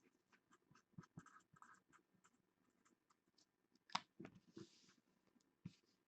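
Near silence with faint handling noise: light scratching and a few soft clicks, with one sharper click about four seconds in, as trading cards and paper are handled on a table.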